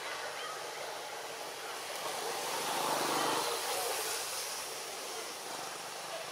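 Steady outdoor background noise, a hiss-like haze that swells for about a second halfway through, with a low hum during the swell.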